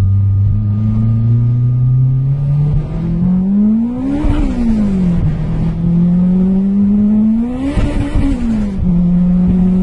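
Car engine pulling hard through the gears, heard from inside the cabin. Its pitch climbs steadily, falls at a gear change about four seconds in, climbs again, and falls at a second shift near the end, then holds steady.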